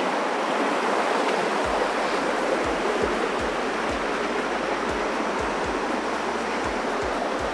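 Steady rush of a rocky hill stream running over boulders.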